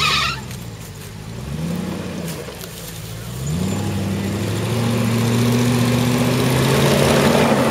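Range Rover's V8 engine revving hard under load on a steep muddy climb. A short rev rises and falls, then the revs climb and are held high for about four seconds with a growing rush of spinning tyres and mud, dropping off right at the end.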